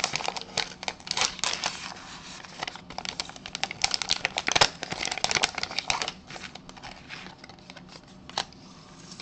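A foil trading-card pack being torn open by hand and crinkled, making dense crackling rustles for about six seconds. They thin out after that, with one sharp crackle near the end.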